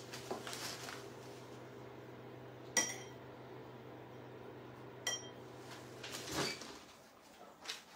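A metal spoon clinking lightly against a small ceramic bowl, two ringing clinks a couple of seconds apart, with soft rustling of a plastic bag. A faint low hum runs underneath and stops about six seconds in.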